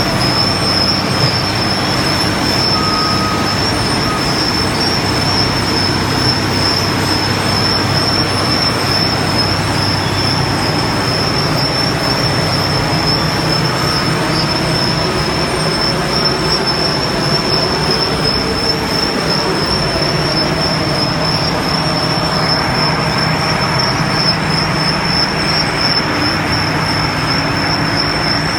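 Loud, steady heavy-machinery noise with a constant high-pitched whine over it. About two-thirds of the way through, the low hum fades and a higher hiss grows.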